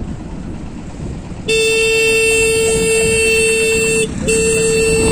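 Road and wind noise from a moving motor scooter, then about one and a half seconds in a loud, steady, single-pitched vehicle horn comes in and is held for over two seconds, breaks off briefly, and sounds again near the end.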